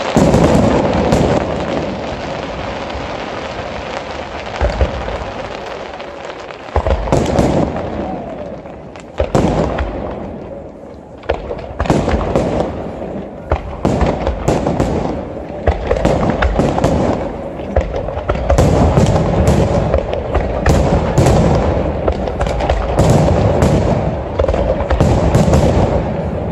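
Aerial fireworks shells bursting in rapid volleys of bangs over a continuous rumble and crackle. The bangs ease off briefly about ten seconds in, then come thick and fast through the rest.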